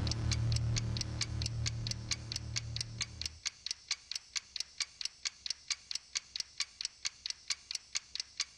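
Ticking-clock sound effect from a TV quiz show's background sound bed, about four ticks a second, over a low held drone that cuts off about three seconds in, leaving only the ticks.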